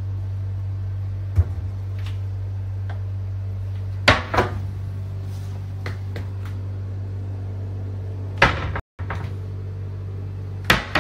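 Kitchen cupboard doors being opened and shut, giving four sharp knocks and bangs, the loudest a short cluster about four seconds in, over a steady low hum.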